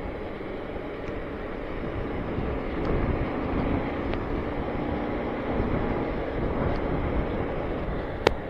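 Riding noise on a Bajaj Avenger 220 motorcycle at road speed: steady wind rush on the microphone over the running engine. A single sharp click near the end.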